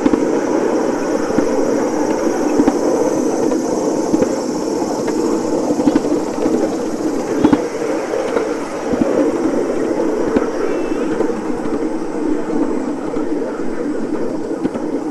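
Ride-on miniature steam railway train running along its track, heard from on board: a steady rumble with occasional clicks.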